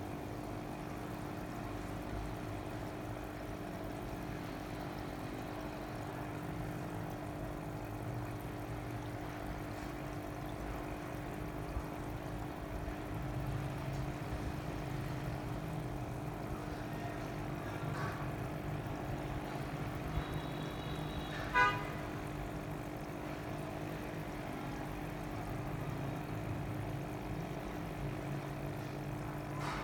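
A steady mechanical hum with a fluctuating low rumble, broken once about two-thirds of the way through by a short, sharp horn-like toot.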